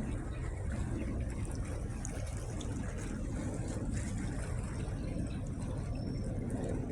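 Steady low rumble of a vessel under way, mixed with the wash of water, with no distinct events.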